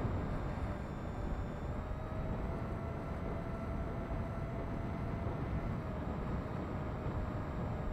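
Faint, steady whine of a radio-controlled model airplane's motor and propeller in flight, rising a little in pitch about two and a half seconds in and falling back about six seconds in, under low wind rumble on the microphone.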